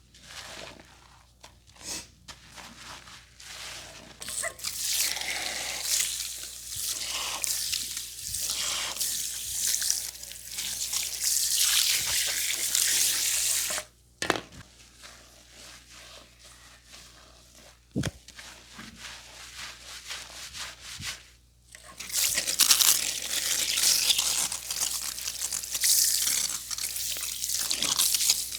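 Hands rubbing and kneading hair and scalp in a vigorous head massage, in long stretches of scratchy rustling, with quieter pauses between. A single sharp click sounds about two-thirds of the way through.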